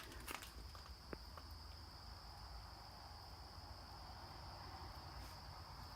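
Faint, steady high-pitched insect chorus, with a couple of light taps about a second in.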